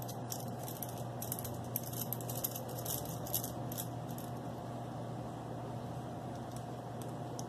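Light metallic clicks and clinks of small screws and a hex driver being worked and handled on an RC truck's transmission, most of them in the first half, over a steady low hum.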